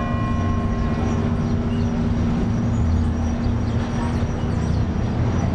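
Steady city street traffic rumble, with the ringing of the large bronze clock bell dying away in the first second or two after its last strike.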